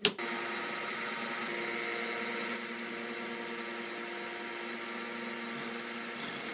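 A click, then an electric motor on a workshop machine running steadily with an even hum made of several steady tones.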